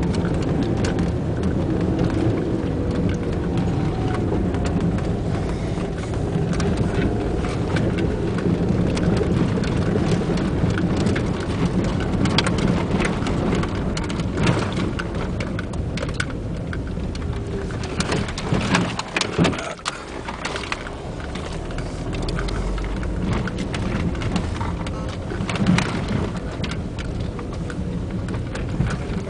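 Car driving fast on a dirt and gravel trail, heard from inside the cabin: a steady low rumble of engine and tyres with a constant patter of gravel and grit striking the body. The noise dips briefly about two-thirds of the way through.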